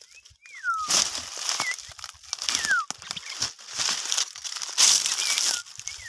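Repeated bursts of rustling, crackling noise, several a second, with four or five short thin whistled calls sliding downward between them.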